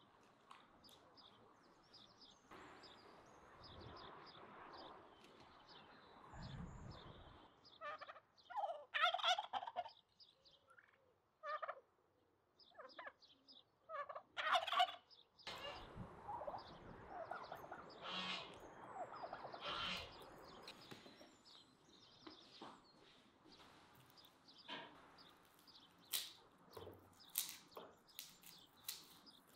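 Domestic white turkeys gobbling, with loud bursts of rapid gobbles about nine seconds in and again around fifteen seconds. Near the end come short crackling clicks of garlic cloves being peeled by hand.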